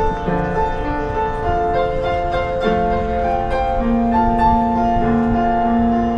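Music with piano: sustained notes and chords changing every second or so, at an even level.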